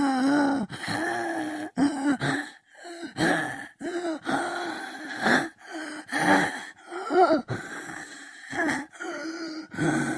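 Zombie sound effect: a run of guttural moans, groans and gasping grunts, each lasting under a second, with the pitch bending up and down.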